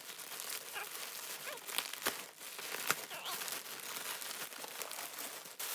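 Plastic mailer packaging crinkling and rustling in the hands as a parcel of clothes is opened, with many small crackles.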